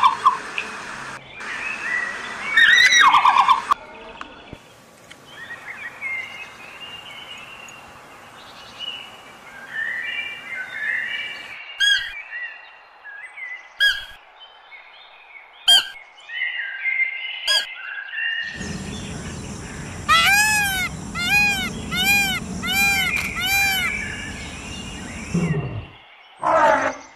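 A run of bird calls from several different recordings: two loud calls in the first few seconds, scattered short chirps and song phrases through the middle, then about six evenly repeated arching notes over a steady noisy background around twenty seconds in.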